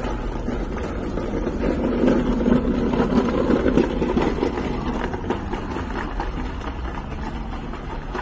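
Street traffic, with a vehicle engine running close by that grows louder for a few seconds in the middle, then fades back into a steady low hum.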